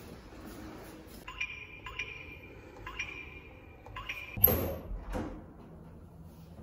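Digital keypad door lock beeping once for each key pressed as a passcode is entered: four or five short beeps about a second apart. Then a louder sharp clack as the lock releases, with a second smaller one about a second later.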